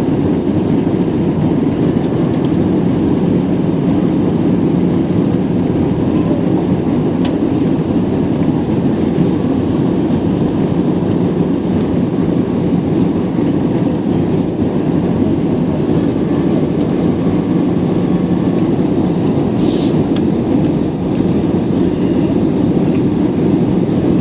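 Steady cabin noise aboard an Airbus A320 on approach: an even rumble and rush of engines and airflow, heaviest in the low range.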